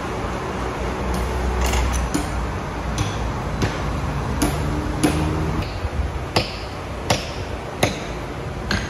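Sawmill machinery humming steadily, with about a dozen sharp knocks over it. The knocks begin about a second in and grow louder and more regular in the second half, coming about every 0.7 s.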